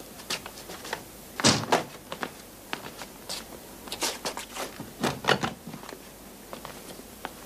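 Scattered knocks, clicks and thuds of people moving about a small room, with two louder thumps about one and a half seconds in and again about five seconds in.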